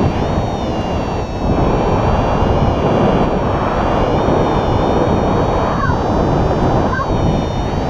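Airflow buffeting the camera microphone in paragliding flight: a loud, steady rush of wind noise. Two brief chirps are heard near the end.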